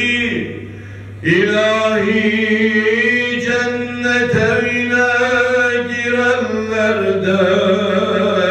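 A man's unaccompanied voice singing a Turkish kaside into a microphone, drawing out long melismatic notes with wavering ornaments and no clear words, after a brief breath pause about a second in. A steady low hum runs underneath.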